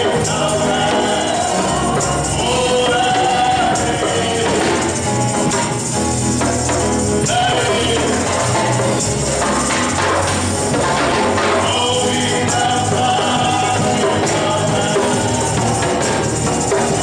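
Gospel praise music: voices singing over sustained low instrumental notes, with a tambourine shaken throughout.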